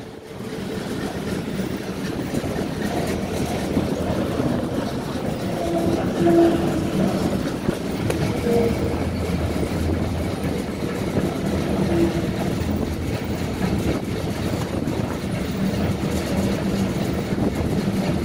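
Fan blades spinning inside a sheet-metal housing, running with a steady rumble and low hum, with dust blowing through it.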